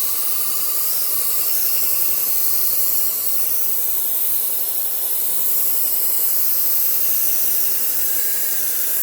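Steel knife blade pressed against a slow-speed belt sander's Cubitron 120-grit belt: a steady, loud, high hiss of the bevel being ground until a burr forms along the edge. The blade's steel is judged to be high in carbon.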